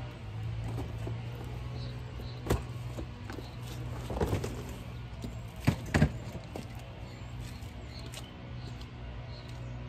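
Background music with several thumps and knocks as a plastic storage bin and bedding are loaded into a car's cargo area; the loudest is a double knock about six seconds in.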